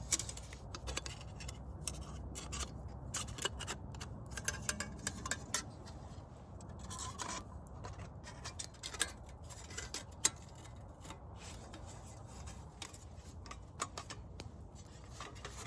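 Irregular scraping, rubbing and light clicks of something being worked by hand, over a low steady rumble.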